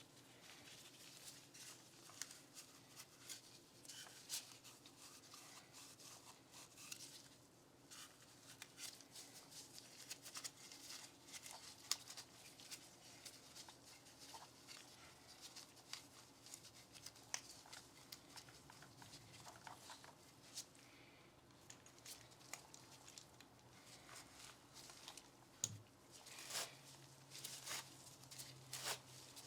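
Faint handling sounds of work on a Glock 19 pistol: scattered light clicks and rustling of hands, metal and polymer parts and tools, with a sharper click about 12 seconds in and another near the end.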